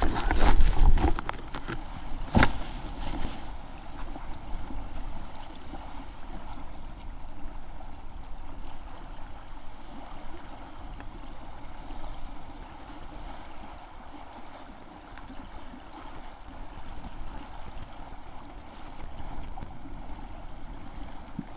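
A few knocks and rubs as the camera is handled and set down in the first three seconds, then a steady rushing of wind on the microphone.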